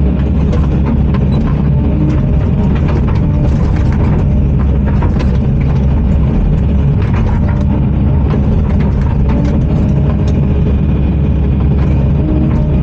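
Heavy earthmoving machine's diesel engine running steadily under load, with scattered knocks and cracks as it works frozen ground.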